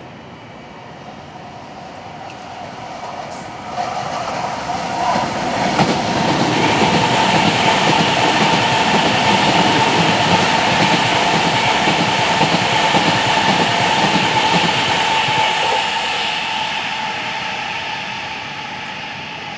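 A Transilien NAT (Francilien) electric commuter train passing close. Its wheel and rail rumble grows over the first few seconds, stays loud with a steady whine through the middle, then fades as it pulls away.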